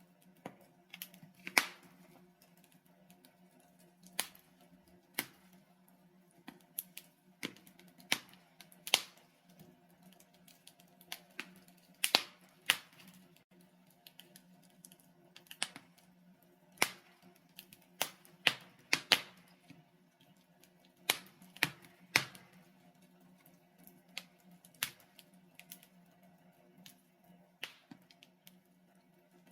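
Burning logs in a fireplace crackling, with irregular sharp pops, some much louder than others, over a faint steady low hum.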